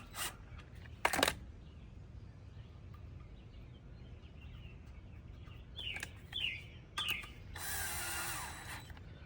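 Power drill or driver running in short bursts on screws: a brief burst about a second in and a longer run of about a second near the end. A bird chirps three times in between.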